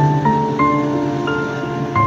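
Background music: a slow melody, a new note about every half second over held chords.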